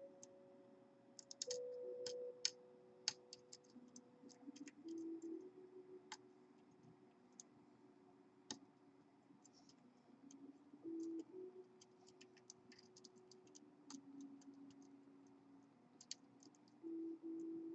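Faint, irregular clicks of a hook pick working the pin stacks of a pin-tumbler challenge lock under tension. Soft held low notes of background music sound underneath.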